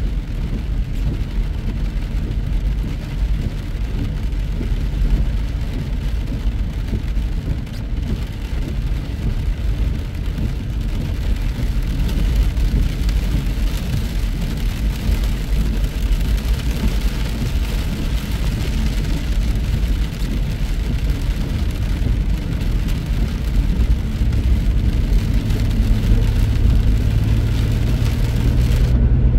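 Motor vehicle driving on a wet highway in rain: a steady road and engine rumble with a hiss of rain and tyre spray, the hiss strongest in the middle. A steady low engine hum comes in near the end.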